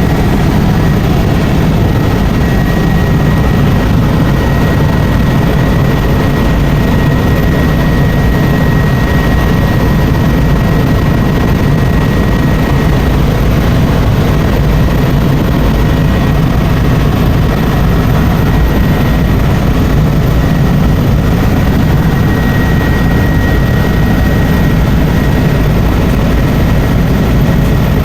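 Helicopter in flight: loud, steady engine and rotor noise with a thin, steady high whine over it.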